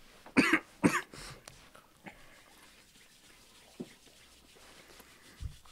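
Two short, wordless vocal sounds about half a second apart from a person reacting to a mouthful of Carolina Reaper hot sauce, followed by a quiet room with a few faint clicks.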